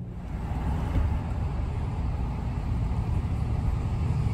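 Diesel dump truck passing close alongside, heard from inside a car: a steady low engine rumble with road noise that comes in suddenly at the start and stays loud.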